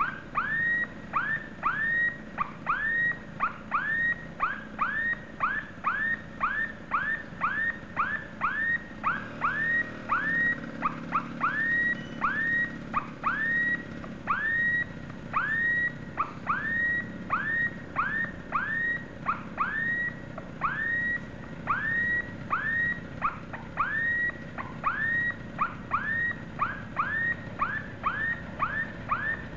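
Railway level crossing warning signal sounding: a repeating electronic tone, about two a second, each one a quick upward sweep. It warns that a train is approaching the crossing.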